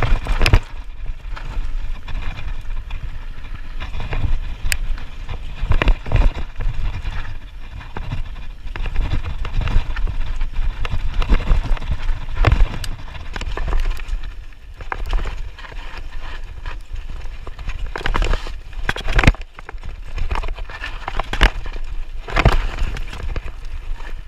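Radon Slide 150 full-suspension mountain bike descending a dirt singletrack, heard from a camera on the bike: tyres rolling over dirt, with the chain and frame rattling and many sharp knocks over bumps, under a steady low rumble of wind on the microphone.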